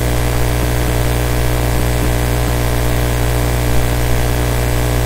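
Steady electrical mains hum and buzz in the recording chain, unchanging throughout.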